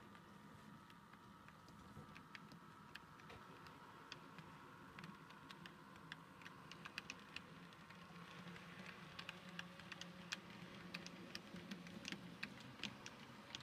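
Model railway train, a model of the Rhaetian Railway ABe 504 railcar with its carriages, running on layout track: a faint steady motor hum with irregular light clicks of the wheels over rail joints and points, the clicks coming thicker in the second half.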